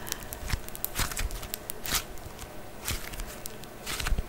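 Sticky anti-stress putty being squeezed and pulled apart between the fingers, giving irregular sticky crackles and clicks with a louder smack roughly once a second.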